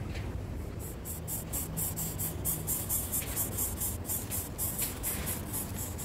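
Rapid, very high-pitched chirping, about four chirps a second, starting just under a second in and keeping an even pace, over a low rumble.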